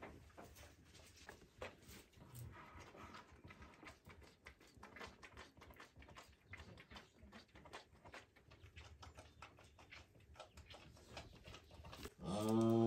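Holstein calf suckling at a cow's udder: quiet, irregular wet sucking and smacking clicks. Near the end, a loud, low moo from the cattle begins.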